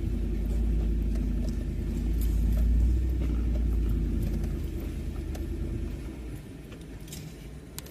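Vehicle engine running with a deep, low sound. It swells about three seconds in, then fades away after about six seconds.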